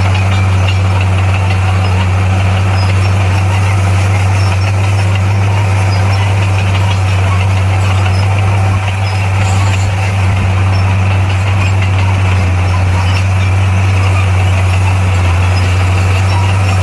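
Heavy earthmoving machine's diesel engine running at a steady pitch.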